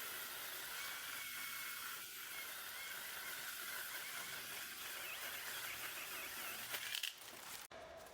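Steady outdoor hiss with a faint high whine over it. About seven seconds in there is a short louder rustle, and then the sound cuts off abruptly.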